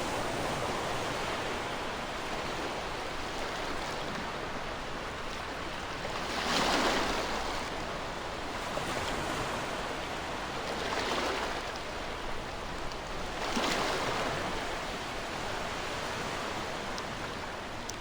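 Ocean surf washing on a shore: a steady wash of water with three louder waves breaking, at about six and a half, eleven and thirteen and a half seconds.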